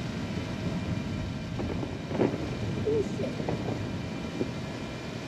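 Steady low rumble of wind and lake water washing against shoreline rocks, with a few brief faint sounds about two to three seconds in.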